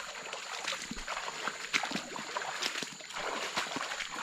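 Irregular small splashes and drips of water over a steady high-pitched whine.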